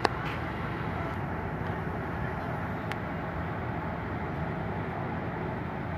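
Steady rumble of idling vehicle engines, with a sharp click at the very start and a fainter one about three seconds in.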